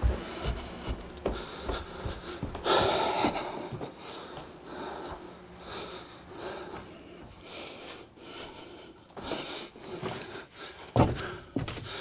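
Kitchen exhaust duct being fitted up through a ceiling hole: irregular scraping, rustling and handling knocks, with heavy breathing from the worker. The loudest sound is a sharp knock near the end.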